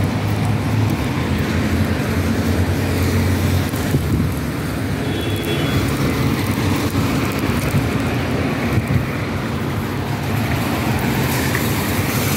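Steady city road traffic noise from passing cars, with a low engine hum over the first few seconds.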